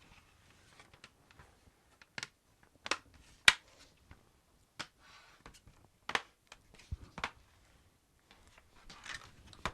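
Irregular sharp clicks and taps of hard plastic and metal laptop parts being handled, with brief rustling between them; the loudest click is about three and a half seconds in.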